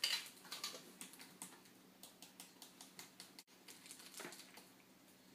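Quick, light tapping and pattering as baking powder is shaken and tapped out of its can into a mixing bowl on a kitchen scale. The taps run for about three seconds, stop briefly, and a few more come after.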